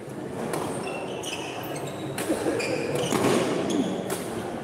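Badminton rally: sharp racket strikes on the shuttlecock and players' shoes squeaking on the court floor, over a steady murmur of crowd noise.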